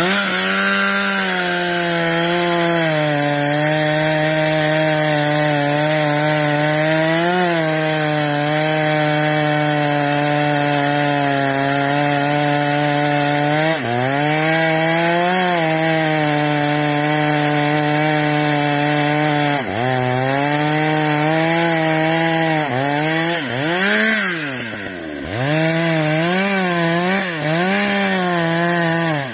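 Two-stroke chainsaw running at high revs while cutting into the trunk of a standing tree being felled. Its pitch dips a couple of times as it bogs in the cut, then rises and falls several times near the end before the throttle is let off.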